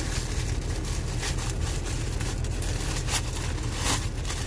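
Plastic shipping package being handled and opened, crinkling a few times, over a steady low rumble.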